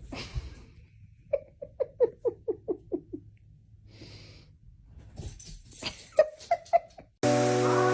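A dog making a quick run of short wheezing breaths, about four a second, then another run after a pause with some clicks. Music starts near the end.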